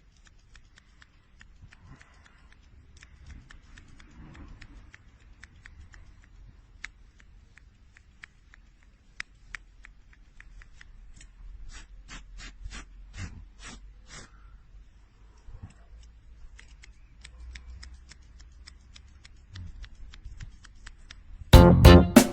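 Faint, scattered clicks over a low rustling, with a quicker run of about a dozen sharp clicks around the middle.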